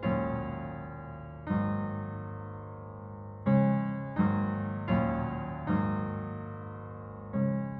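Background piano music: slow chords struck one after another, about every second or so, each left to ring and fade.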